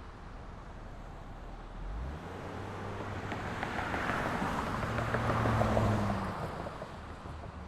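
Street traffic ambience with a motor vehicle driving past: its low engine hum and tyre noise build, peak about five to six seconds in, then fade back into the steady hum of traffic.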